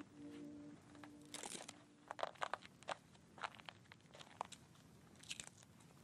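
Faint, scattered crinkling and clicking of braided cord being handled and knotted by hand. Background music fades out in the first two seconds.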